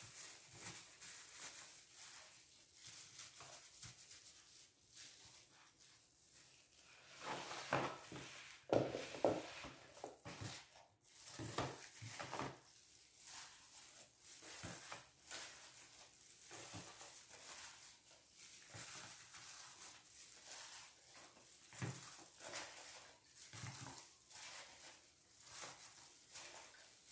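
Irregular handling noises from a plastic-gloved hand lifting white cheese cubes out of brine and setting them into plastic tubs, with a louder cluster of knocks and rustles about eight seconds in.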